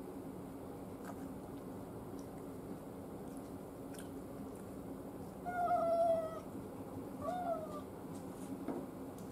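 A domestic cat meowing twice. The first meow, about five and a half seconds in, is long and level. The second, just after it, is shorter and rises and falls.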